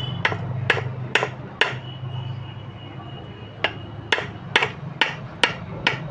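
Hammer blows on metal, sharp and evenly spaced at about two a second: four strikes, a pause of about two seconds, then six more, over a steady low hum.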